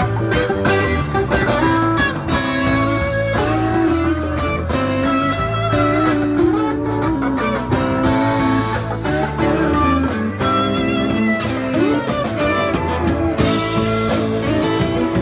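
Live rock band playing an instrumental passage: electric guitars over bass guitar and a drum kit, with no singing.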